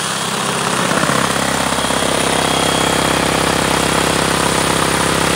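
A DeWalt cordless drill strapped to the frame of a homemade soil screener runs and shakes the wire-mesh screen, giving a steady, fast mechanical rattle over a low hum. It grows louder about a second in.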